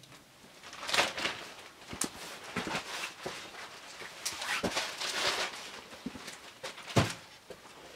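Irregular crackling and sizzling from a hot wood stove top where bread slices are toasting on a cast iron griddle lid, with a sharp pop about seven seconds in.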